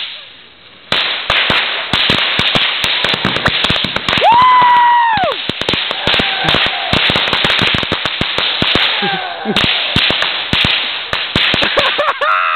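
A bag of assorted fireworks going off together: a rapid, continuous string of firecracker bangs and crackling over a hiss. About four seconds in, a whistling firework screams, rising, holding for about a second, then falling away; fainter whistles come near nine seconds and at the end.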